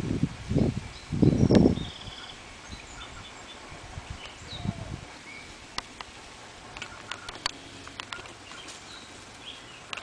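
Rustling in foliage for the first two seconds, then small birds chirping faintly, with scattered sharp clicks, mostly in the second half.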